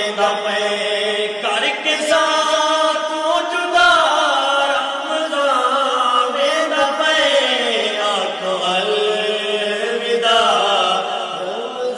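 Male naat reciters chanting a Saraiki nazm bidding farewell to Ramadan, in long drawn-out sung notes with no beat.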